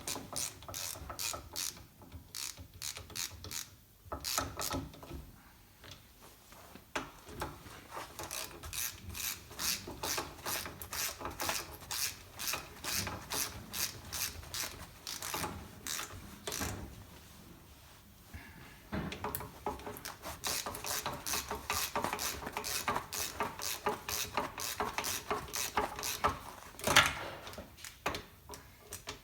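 Socket ratchet with a 9/16 UNF socket clicking in quick runs, with short pauses between runs, as bolts are tightened back up.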